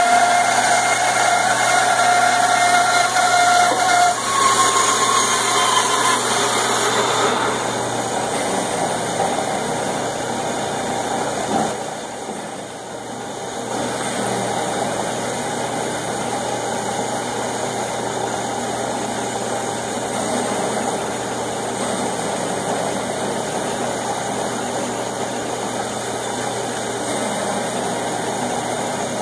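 Band saw running while a wooden board is fed through the blade to cut notches. A steady tone sounds over the motor hum for the first four seconds, then a steady even hum, briefly quieter about twelve seconds in.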